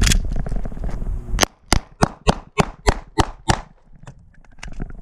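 SIG Sauer P320 pistol firing a fast string of about eight or nine shots, about four a second, beginning about a second and a half in after a steady rumble. A pause of about a second and a half follows before the shooting starts again at the very end.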